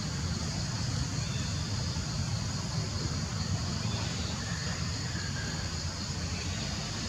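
Steady outdoor background noise: a low rumble with a steady high hiss above it, unchanging throughout.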